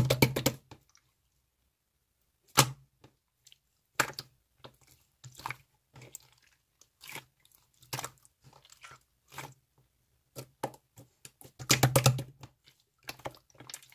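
Slime being squeezed and pressed by hand, giving off sharp crackling pops at irregular intervals, with a denser run of crackles near the end.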